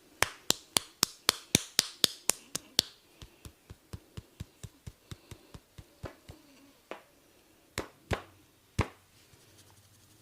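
A quick run of sharp snaps from a barber's hands during a head massage, about four a second. The snaps grow fainter after about three seconds and end with a few scattered ones.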